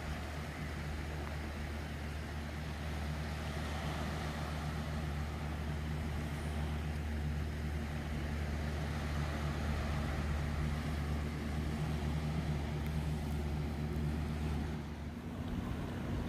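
A steady low engine drone with an even hiss over it, dropping away about a second before the end.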